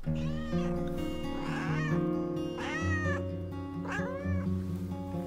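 Calico cat meowing for food: four drawn-out meows, each rising then falling, about one every second and a bit. Background music plays underneath.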